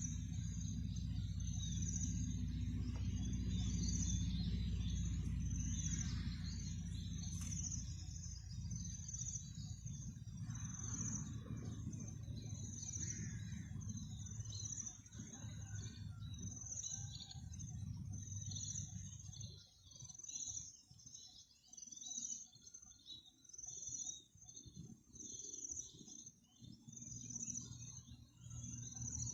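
Outdoor rural ambience: an insect's high chirp pulsing about every second and a half, with small birds calling, over a low rumble that fades out about halfway through.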